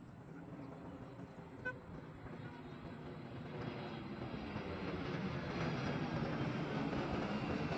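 Airliner jet engines heard as the plane approaches: a rushing roar that grows louder over a few seconds and then holds, with a faint falling whine near the end.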